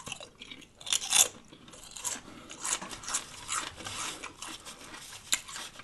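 Close-up chewing and crunching of a lettuce-wrapped sub sandwich, with irregular bites and crackly mouth clicks.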